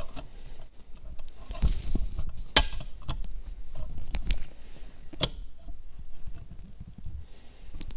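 Large tongue-and-groove pliers clicking and clinking against the snap ring and compressor housing of a Holset turbocharger as they are fitted to the clip, with light handling noise between. Two sharp metal clicks stand out, about two and a half and five seconds in.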